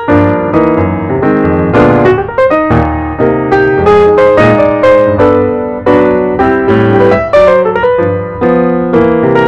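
Background piano music: a quick run of struck notes over held chords.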